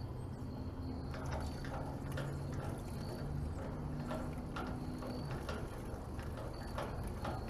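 Fill-Rite FR112 rotary vane hand pump being cranked to pump diesel from the transfer tank, its mechanism clicking in pairs about once a second as the handle turns.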